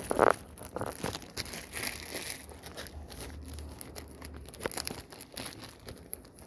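A puppy chewing and crunching small bits of food off a stone floor: irregular crunches and crackles, the loudest about a quarter-second in.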